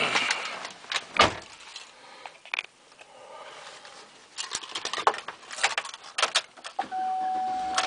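Clicks, knocks and keys jangling as a driver settles into a 2009 Chevrolet Avalanche and puts the key in the ignition. About seven seconds in, a steady single-pitched electronic chime from the dashboard starts and keeps going.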